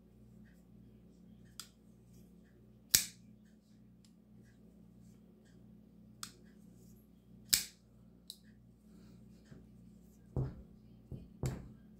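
Bestech Thorn flipper folding knife worked open by its flipper tab and closed again: two loud, sharp snaps about four and a half seconds apart as the blade fires open and locks, with smaller clicks of the blade being closed between them. A few duller knocks come near the end.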